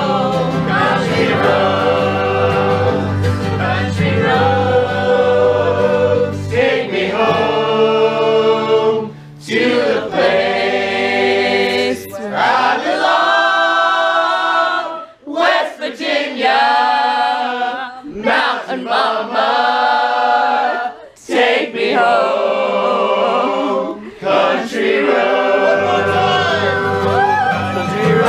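A group of voices singing together with acoustic guitars and banjo, an informal string-band sing-along. About eight seconds in the low accompaniment drops away and the voices carry on in short phrases with brief pauses between them, and the fuller accompaniment comes back in near the end.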